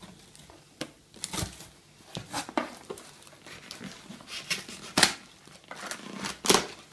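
A knife slitting clear plastic packing tape on a cardboard shipping box, with crinkling tape and scraping cardboard. The strokes come irregularly, the loudest about five and six and a half seconds in.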